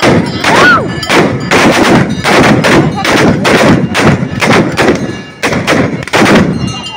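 A ragged volley of black-powder guns fired by many shooters: more than a dozen loud shots in quick, irregular succession, some nearly overlapping, each with a short echoing tail.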